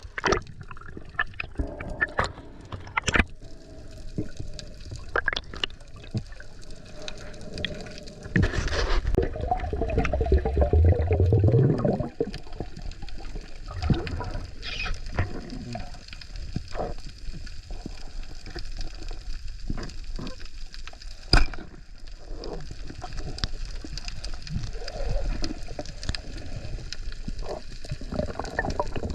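Sea water sloshing and gurgling around the camera while swimming, with scattered sharp clicks and a louder gurgling rush of water from about nine to twelve seconds in.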